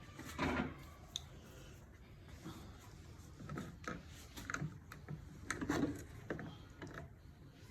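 Scattered light knocks and clicks, irregular and faint, of washing-machine parts and tools being handled.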